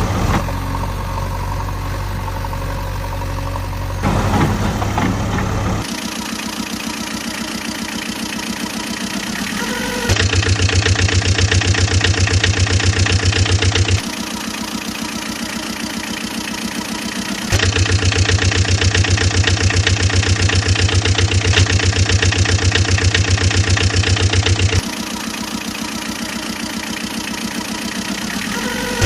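Engine running with a rapid, even chugging, switching abruptly every few seconds between a louder, deeper-humming version and a quieter, thinner one.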